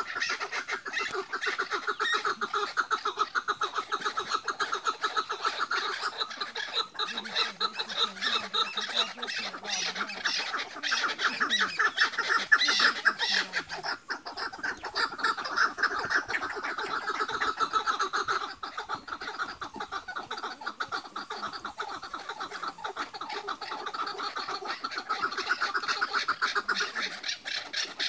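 Chukar partridges calling over each other in a long unbroken stream of rapid chuckling notes: the 'hıngırma' challenge call of males contesting one another.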